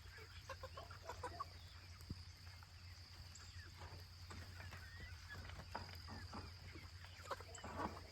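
Chickens clucking faintly in short, scattered calls, over a steady low hum.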